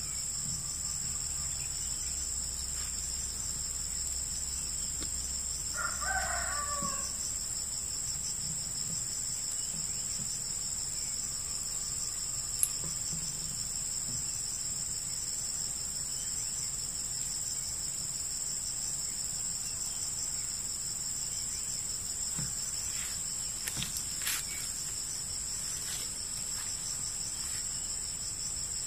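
Insects droning steadily at a high pitch, with a rooster crowing once about six seconds in. A few faint clicks come later.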